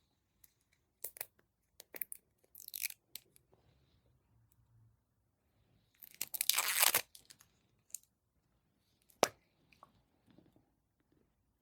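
Plastic packaging of a Baby Bottle Pop candy being handled and torn open: scattered sharp clicks and short rips, then a longer crinkling tear about six seconds in, the loudest sound, and one sharp click a few seconds later.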